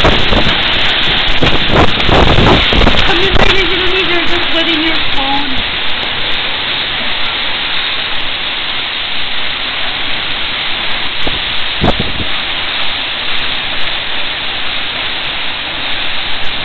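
Heavy wind-driven rain in a severe windstorm, a dense steady rush that is gustier and louder for the first few seconds before settling. A single sharp knock sounds about twelve seconds in.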